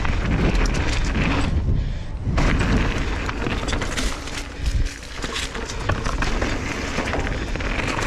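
Mountain bike riding fast down a dirt downhill trail: wind rumbling on the microphone, tyres running over dirt and rock, and a steady patter of clicks and rattles from the bike.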